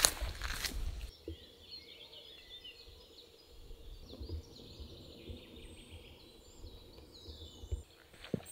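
A few footsteps with a low rumble, cut off about a second in, then several small birds singing and chirping together, with a few soft thumps and clicks underneath.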